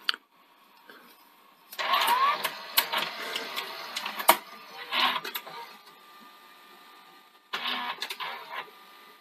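Mechanism of a Mitsubishi HS8010 VHS recorder running with its covers off: irregular clicking and whirring in short bursts, with a brief rising whine about two seconds in and a sharp click just after four seconds.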